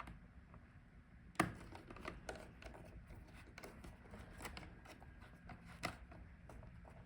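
Faint, scattered clicks and taps of small plastic and metal laptop parts being handled as the hinges are fitted back into the back cover, with one sharper click about a second and a half in.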